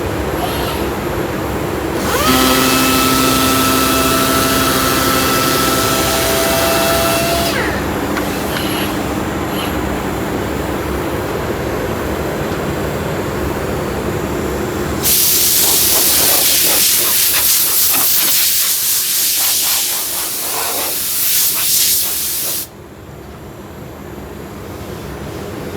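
Robotic sanding machine running on walnut veneer: a steady sanding hiss with motor noise. A whine with several steady tones comes in about two seconds in and lasts for a few seconds. A louder, brighter hiss in the later part stops abruptly near the end, leaving a quieter steady hum.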